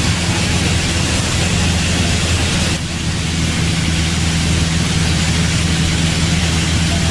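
Piper light aircraft's piston engine running in flight, heard from inside the cockpit: a steady low drone under a constant rush of air noise. The hiss dips briefly about three seconds in.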